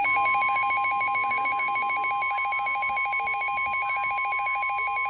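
NOAA Weather Radio alert: the steady, high-pitched 1050 Hz warning alarm tone, with a rapid pulsing electronic alarm beep over it, signalling an incoming weather warning.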